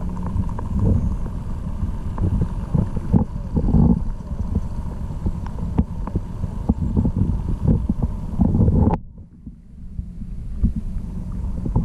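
Muffled underwater noise from a camera held below the surface: a low rumble of moving water with irregular knocks against the housing. About nine seconds in it drops suddenly to a much quieter, duller rumble, then builds back up.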